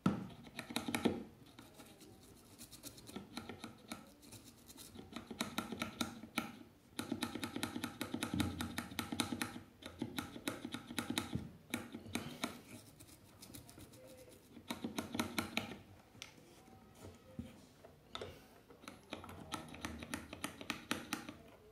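Rapid scratchy scrubbing in repeated bursts of a few seconds each with short pauses between: a cleaning tool worked against a hard part of the phone being repaired.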